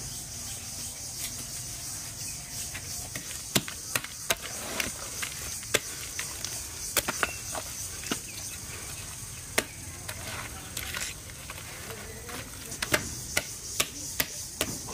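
A bare hand mixing thick, wet jalebi batter of flour and water in an aluminium pot, making irregular sticky slaps and squelching clicks. A steady high hiss runs underneath.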